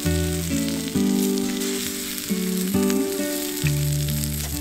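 Sausages and an egg sizzling and spitting in an iron frying pan, a steady hiss under background music with changing chords.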